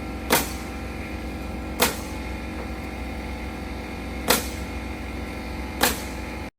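Four sharp single shots of a nail gun driving nails into 1x4 roof decking boards, spaced about one and a half to two and a half seconds apart, over a steady machine hum.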